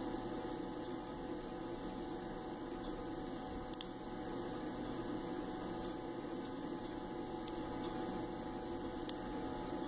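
Steady electrical hum of room tone, with two faint clicks, about four and about nine seconds in.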